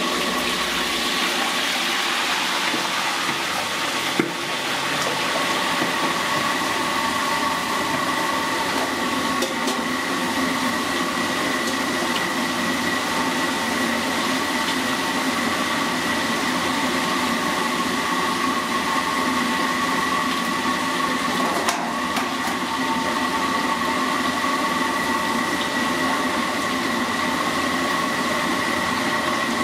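Mantis shrimp deep-frying in a wok of hot oil: a steady sizzle over the rush of the gas burner, brightest in the first seconds as the shrimp go into the oil. A couple of sharp clinks, about four seconds in and again past the middle.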